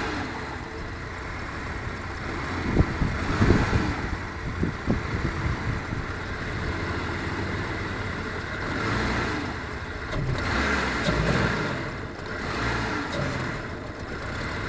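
A 1996 Jeep Grand Cherokee's inline-six engine stumbling and sputtering as the throttle is opened, with several sharp pops about three to five seconds in and the engine surging and sagging afterwards. It is backfiring into the air intake breather, a misfire that the owner thinks may come from a faulty crankshaft position sensor (code 11).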